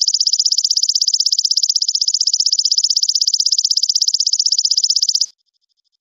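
A recorded animal song from a songbird-training compilation: a high, rapid, evenly pulsed trill that cuts off abruptly about five seconds in, with a fainter pulsed trill continuing behind it.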